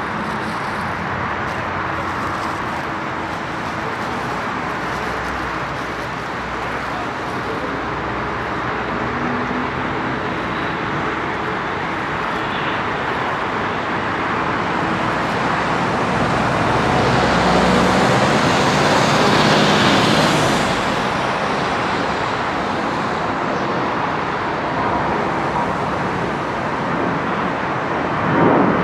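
Steady airport noise of aircraft and ground vehicles, swelling for a few seconds just past the middle.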